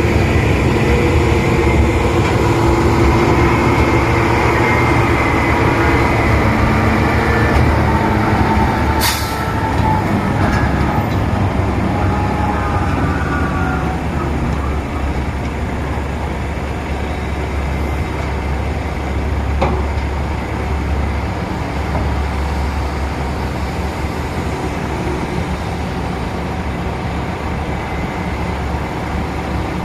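Large diesel engines of a Caterpillar mining excavator and haul truck running loud and steady, with a short sharp hiss about nine seconds in and the engine note dropping a little soon after.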